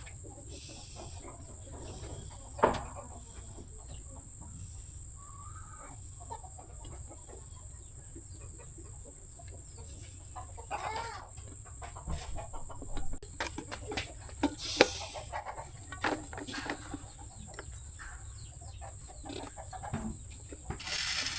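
Scattered clicks and knocks of hand work on the kettle's wiring, with a few short clucking calls in the background and a steady high-pitched tone under it all.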